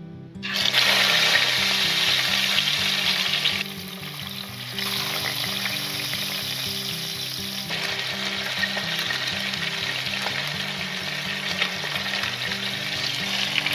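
Fish pieces going into hot oil in a wok and frying with a loud sizzle that starts abruptly about half a second in. The sizzle dips briefly near four seconds and picks up again as frying continues.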